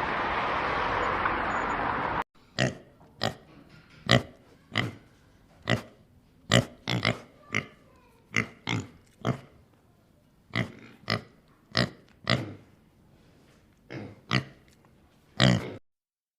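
A steady rushing noise that cuts off abruptly about two seconds in, followed by a pig grunting: about twenty short, separate grunts, roughly one every half to one second, with some coming in quick pairs.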